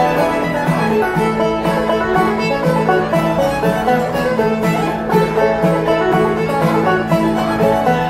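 String band playing an instrumental tune on banjo, fiddle and acoustic guitar, with a steady driving beat.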